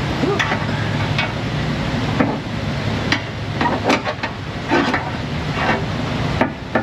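Irregular metal clinks and light knocks of hand tools and parts as the engine's oil pump and drive shaft are worked off, over a steady low hum. The clicks come quicker near the end.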